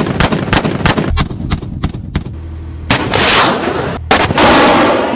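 War-scene sound effect: a quick string of about ten gunshots over the first two seconds, then two long, loud rushing blasts of missiles, the second starting about four seconds in.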